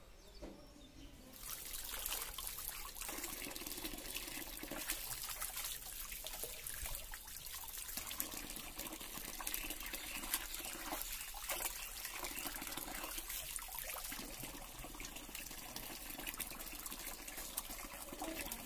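Water running from an outdoor tap into a plastic basin, with splashing as hands rinse fish in the water; the running water starts about a second and a half in and stays steady.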